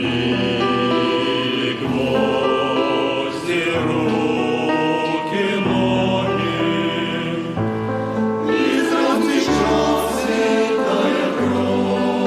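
Choir singing a Christian song in sustained chords that change every couple of seconds.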